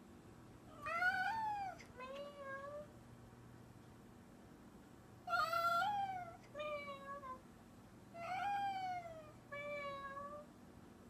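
A domestic cat meowing in three two-part calls. Each is a longer meow that rises then falls in pitch, followed by a shorter, lower one, over a faint steady hum.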